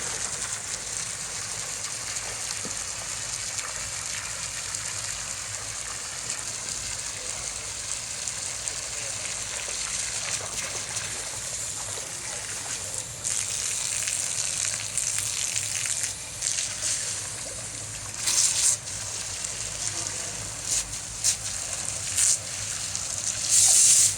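Steady rush of water moving through the clarifier/filter tank, with several brief louder surges in the second half.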